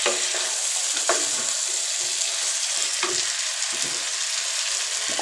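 Chicken pieces and onion-tomato masala sizzling in a nonstick wok with a steady hiss, stirred with a wooden spatula. About five spatula strokes scrape and knock against the pan.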